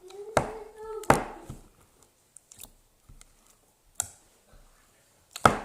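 Slime being squeezed and snapped by hand: four sharp, wet pops and clicks spread over several seconds, with a short voice sound in the first second.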